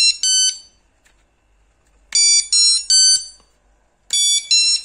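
Electronic carp fishing bite alarms beeping: quick three-note sequences of tones at different pitches, repeated about every two seconds.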